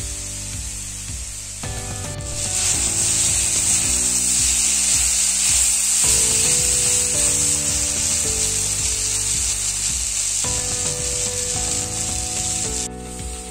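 Sliced okra sizzling as it is stir-fried in an iron kadai, roasted until the sliminess has cooked off. The sizzle starts suddenly about two seconds in and cuts off near the end. Background music with held notes plays underneath.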